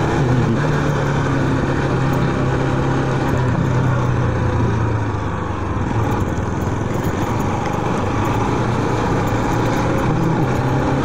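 Kawasaki Rouser 200NS single-cylinder engine running under way, with wind and road rush heard from the moving bike. The engine note eases off around the middle and picks up again near the end.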